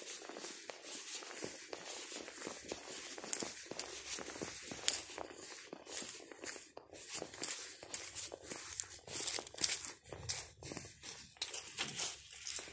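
Footsteps on dry, dead grass and fallen leaves: irregular crunching and crackling rustles.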